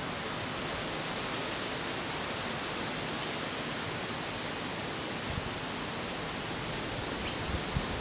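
Steady outdoor background hiss among eucalyptus foliage, with a couple of soft low thumps in the second half and a faint short high chirp near the end.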